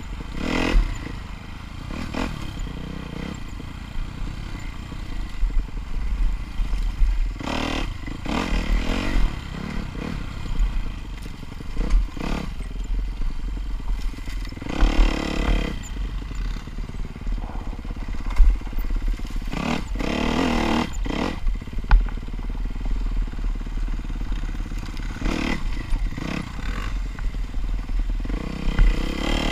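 Kawasaki dirt bike engine heard from the rider's helmet camera, riding technical rocky single track. The throttle opens in repeated surges every few seconds over a steady low rumble of wind on the microphone.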